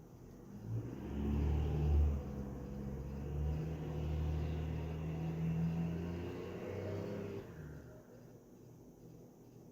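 A motor vehicle passing by, its low engine drone swelling up about a second in and fading away over about six seconds.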